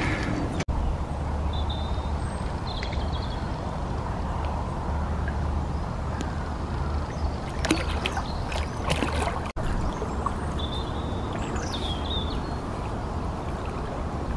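Steady wind noise on the microphone, with a hooked carp splashing and thrashing at the water's surface in a short flurry a little after the middle.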